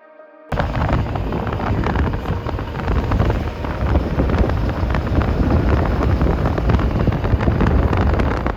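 Loud rushing wind noise buffeting the microphone, with a heavy low rumble and crackle, cutting in suddenly about half a second in.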